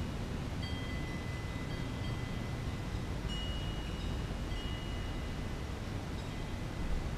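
Wind chimes ringing, several notes at different pitches struck at irregular moments, each ringing on for a second or so, over a steady low rumble.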